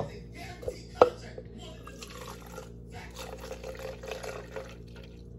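Liquid being poured into a cup, with two sharp knocks about a second apart, like a bottle or cup set down on a counter.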